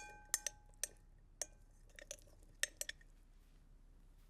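A spoon clinking and tapping against a dish while harissa paste is dolloped in: about ten sharp clicks through the first three seconds, a few of them leaving a brief ringing tone.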